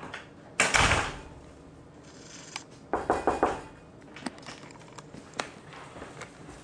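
Handling noises in a small room: a brief burst of rustling, then about two seconds later a quick run of four or five sharp taps, with scattered small clicks.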